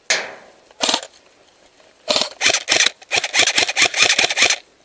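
Airsoft electric gun (AEG) firing close by: a single shot at the start, another about a second in, then rapid strings of shots from about two seconds in, roughly ten a second, stopping shortly before the end.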